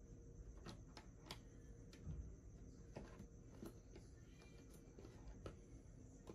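Faint, scattered plastic clicks, roughly one or two a second, as the snap clips of an Asus Vivobook 15 F513E's bottom case release while fingers pry along its seam.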